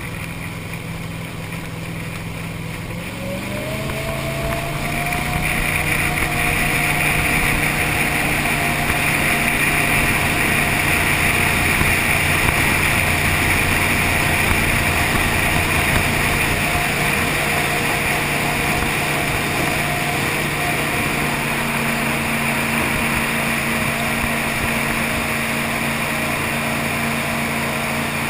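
V8 engine of a tunnel-hull jet boat running; its note rises about three to five seconds in and then holds steady at the higher pitch, with a loud steady hiss joining it as it picks up.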